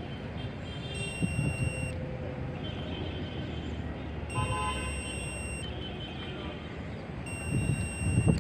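Three high electronic beeps, each lasting about a second and coming roughly three seconds apart. They fit a digital multimeter's continuity beeper sounding as the float sensor's switch is tested through its wires. Low wind rumble on the microphone runs underneath.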